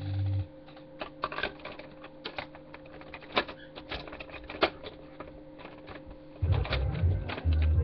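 Scattered irregular clicks and taps of a webcam being handled and brushed by clothing close to the microphone. About six and a half seconds in, loud low thumping pulses start.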